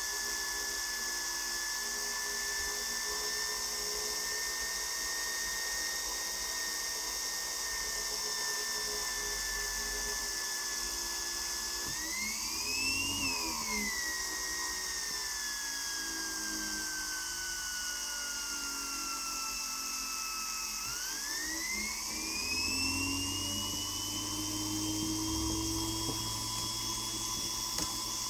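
Gintschel Tornado model steam turbine spinning with a high whine over a steady hiss of steam, driving a Ferris wheel that it only just has the power to turn. About twelve seconds in the whine jumps up in pitch, then sinks slowly as the turbine slows under the load, and about twenty seconds in it climbs back up and holds.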